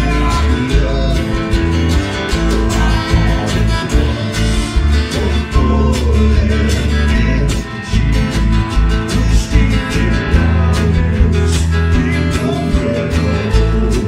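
Live alt-country rock band playing: electric and acoustic guitars, bass guitar and a drum kit, with regular drum and cymbal hits through the dense music.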